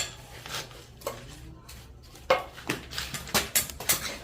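Irregular sharp metallic clinks and knocks of hand tools and metal parts being handled: one sharp click at the start, then a quicker run of knocks from about two seconds in.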